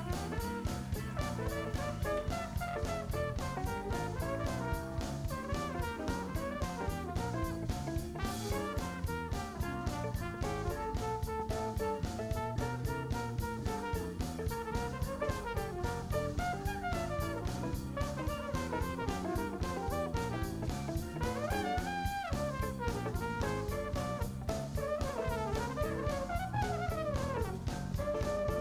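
A band playing an instrumental blues-rock passage: a drum kit keeps a steady beat under a wandering melodic lead line.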